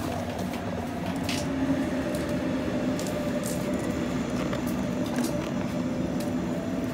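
Railway station platform ambience: a steady mechanical hum with a few faint clicks.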